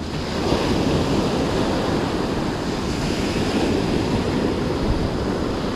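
Surf washing onto the shore, a steady rushing of waves that swells a little about half a second in.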